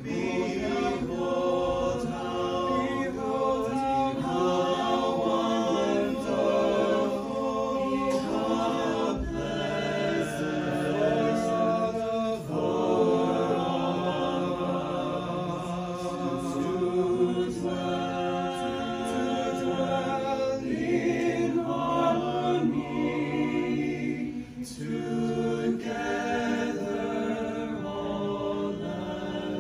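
Small mixed choir of men's and women's voices singing a cappella in several harmonised parts.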